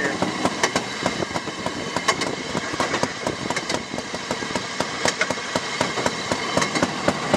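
Railroad speeder (motorcar) running along the track, with a rapid, uneven clicking clatter from the car on the rails over its motor.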